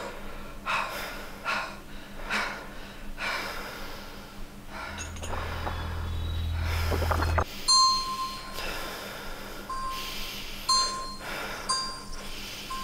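Sound-art soundtrack: short hissing swells about once a second, a low hum that builds and cuts off suddenly about halfway, then small bell dings repeating roughly once a second.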